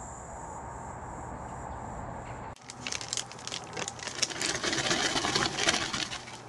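Wood pellets poured into the firebox of a titanium wood stove: a dense, rattling patter of many small pellets striking the thin metal, starting about two and a half seconds in, building and then easing off near the end. Before it there is a steady outdoor hiss with a faint high tone.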